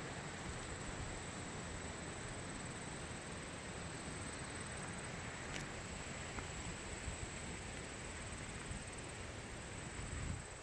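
Steady outdoor hiss of wind, with a constant high-pitched drone of insects over it. The rushing eases just before the end.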